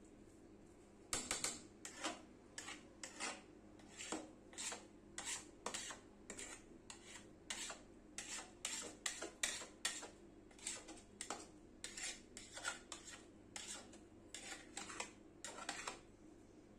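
Long metal spatula scraping and clinking against the inside of a large aluminium cooking pot while stirring thick rice and meat. It goes in a steady run of strokes, about two a second, starting about a second in.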